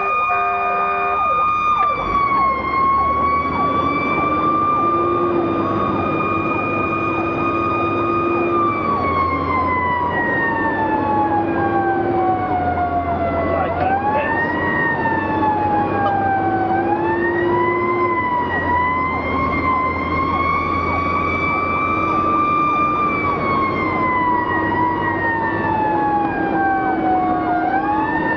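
Fire engine siren wailing, heard from the cab: the tone is held high, then winds slowly down and quickly back up, several times over. Several held blasts of a lower-pitched horn sound over it, with the truck's engine droning underneath.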